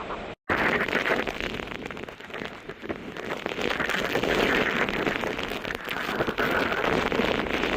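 Hurricane wind and heavy rain: a dense, steady rushing hiss, after a brief dropout about half a second in.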